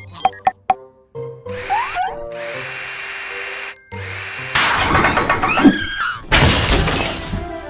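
Cartoon power-tool sound effects, whirring and buzzing in stretches, over background music; a rising whoosh comes about two seconds in and the loudest stretch runs through the second half.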